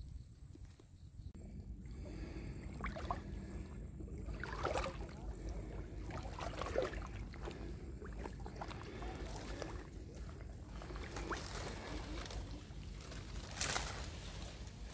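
Shallow water sloshing and splashing irregularly, starting about two seconds in, from wading and groping by hand for prawns; one louder splash near the end.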